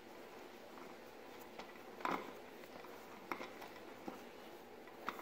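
A few light clicks and taps of a hex key working the fastener of a chrome motorcycle air cleaner cover and the hand handling the loosened cover, the loudest about two seconds in.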